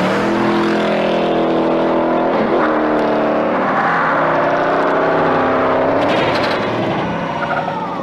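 Muscle car engine revving hard at full throttle as the car slides out, followed by a sharp crash of impact about six seconds in as the car hits the verge.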